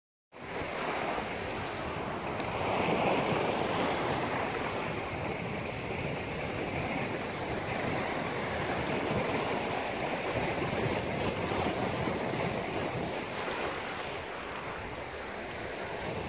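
Small sea waves breaking and washing over a rocky shore in a steady surf, swelling and easing, with wind buffeting the phone's microphone.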